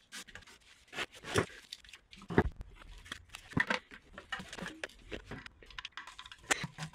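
Irregular clicks, scrapes and rustles of gloved hands handling electrical wiring in a milling machine's control cabinet and its metal cover plate, with a few sharper knocks.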